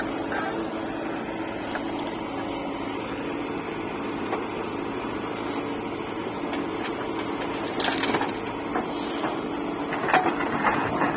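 Diesel engine of a JCB 3DX backhoe loader running steadily under load as it digs and loads soil, with a couple of sharp knocks, one about two-thirds in and one near the end.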